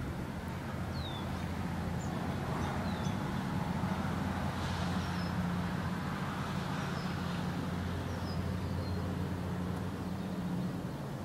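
Steady low mechanical hum, like a motor running, with a few short high bird chirps over it.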